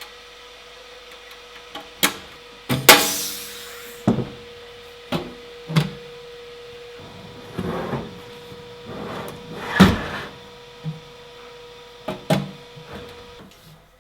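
A string of irregular knocks and clunks from objects being handled, about a dozen in all, with a louder knock about three seconds in followed by a brief scraping rasp, over a faint steady hum that stops shortly before the end.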